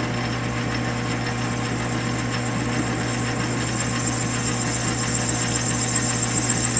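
South Bend 9-inch metal lathe running steadily with a constant hum while a facing tool cuts across the end of an aluminium bar. A thin high whine grows louder toward the end.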